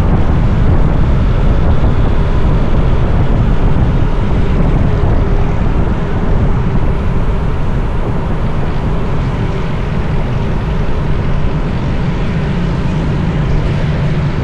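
Wind buffeting the microphone of a camera on a moving bicycle: a loud, steady rush with a strong low rumble.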